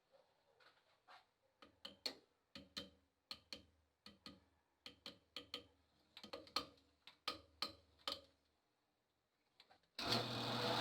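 A string of faint, irregular small clicks and taps, about twenty over several seconds, from hands handling small parts while a reinforcing ring is glued onto a pool cue.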